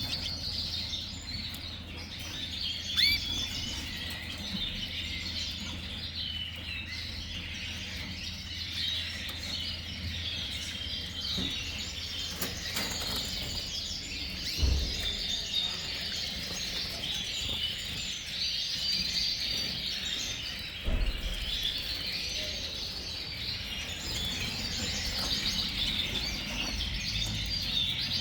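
A flock of red canaries chirping and twittering together in a continuous, overlapping chorus of short high notes and trills, with a few brief dull thumps.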